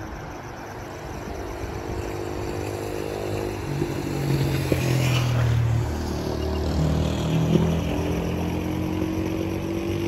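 Motor vehicle engine running nearby, growing louder over the first few seconds, then its pitch climbing steadily through the second half as it accelerates.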